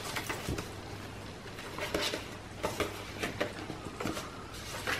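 Paper pages of a chunky handmade junk journal being turned and handled by hand: several short paper rustles and flicks.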